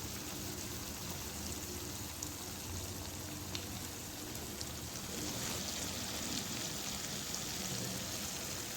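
Food sizzling steadily in a hot pan: an even hiss with a few faint scattered pops.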